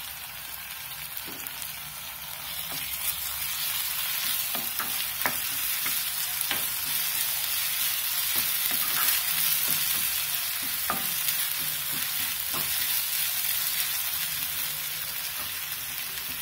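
Chopped onions and ginger-garlic paste sizzling in oil and ghee in a nonstick pan, growing louder a couple of seconds in as stirring begins. A wooden spatula scrapes and taps the pan now and then as it stirs.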